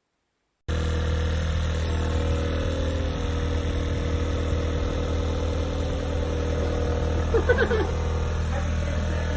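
Electric ceramic fan heater running, its fan motor giving a steady hum that starts abruptly, with a brief irregular sound about seven and a half seconds in.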